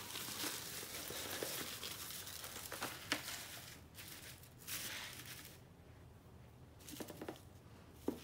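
Crinkling and rustling as a tassel banner with its card backing is handled and laid down on a table, busiest in the first three seconds or so, then quieter, with a few brief rustles and light taps.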